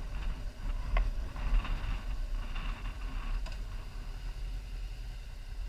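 Motorcycle riding at low speed, heard from the rider's helmet camera: a steady low rumble with a couple of light clicks.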